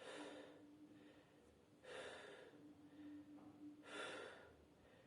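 A person taking deep, forced breaths through the open mouth, as a patient does for lung auscultation: three faint breaths about two seconds apart.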